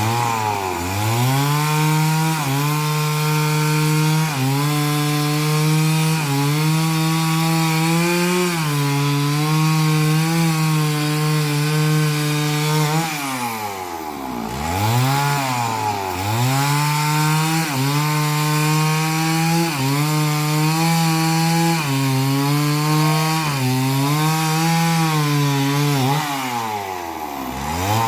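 Chainsaw running at high revs while cutting a coconut trunk. The engine pitch drops to low revs and winds back up about halfway through, and drops again near the end.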